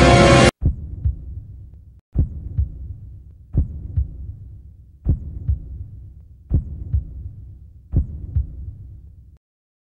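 Music cuts off half a second in, then a heartbeat sound effect: six low double thumps, one pair about every second and a half.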